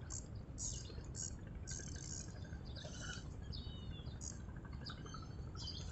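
Quiet seaside ambience: a steady low rumble of wind and water, with scattered short high bird chirps every half second to a second.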